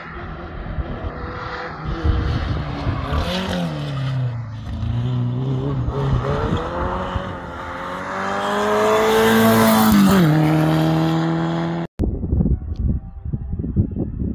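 Single-seater open-wheel race car's engine accelerating hard up a hillclimb, its pitch climbing and then dropping at two upshifts, loudest as it passes close about nine to ten seconds in. The sound cuts off abruptly near the end, leaving a rough rumbling noise with the engine faint in the distance.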